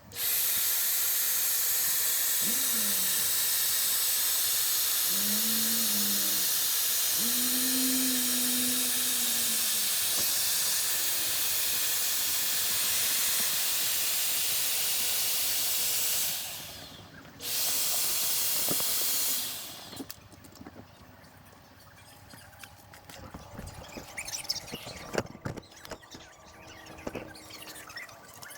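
Electric air pump running with a steady loud rushing hiss while inflating an inflatable RV skirt tube. It cuts off about 16 seconds in, runs again for about two seconds, then stops, leaving faint clicks and handling knocks.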